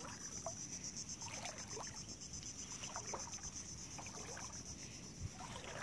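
Footsteps wading through shallow seawater, each step a short slosh and splash, coming irregularly about one or two a second.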